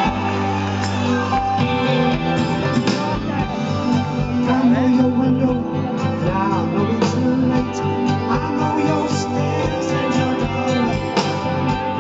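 Live rock band playing through a concert sound system, with guitar and drums under a male lead singer.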